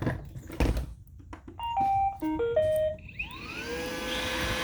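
Roomba robot vacuum starting up: a couple of handling knocks, its short electronic start-up tune of stepped beeps, then the vacuum motor spinning up into a steady whine. With only the light gray roller fitted it runs clean, with no squeak or knocking.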